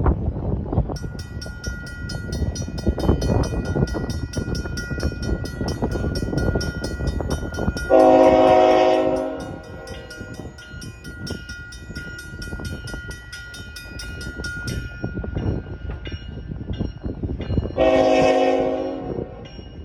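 Safetran mechanical crossing bell ringing in rapid, even strokes, starting about a second in and stopping about three-quarters of the way through as the gates come down. Over it, the horn of an approaching GE ET44AC locomotive sounds two long blasts, one about halfway and one near the end.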